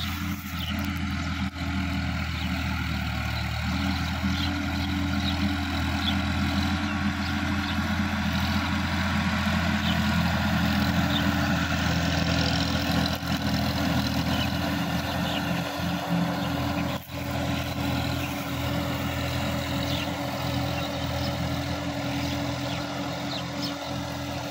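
Sonalika DI-50 RX tractor's diesel engine running steadily while it tills a wet, muddy paddy field. It grows louder from about four seconds in. Short bird chirps sound over it in the first few seconds.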